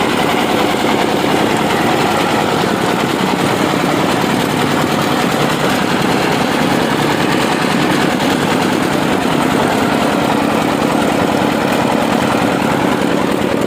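Diesel engine of a mobile rice mill running steadily at a constant speed, with a fast even pulsing, as it drives the milling machinery.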